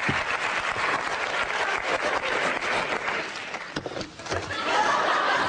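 Studio audience applauding, a dense even clatter of clapping that dips briefly about four seconds in and then swells again.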